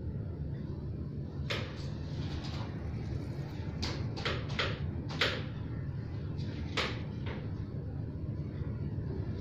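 A string of sharp clicks and light knocks from the front fork and handlebar of a Polygon Siskiu D5 mountain bike as they are handled and fitted, bunched between about one and a half and seven seconds in, over a steady low hum.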